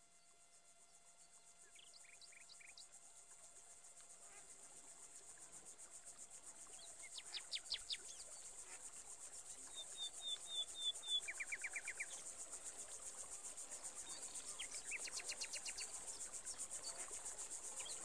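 Woodland ambience fading in: a steady high insect trill, with birds chirping in short runs of quick notes now and then.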